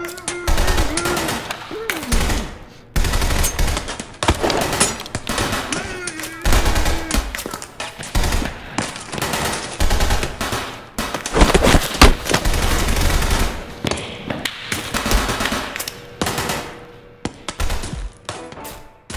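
Action-film sound effects: a rapid, dense run of sharp impacts and bangs with heavy thuds, mixed with short vocal grunts or muffled cries.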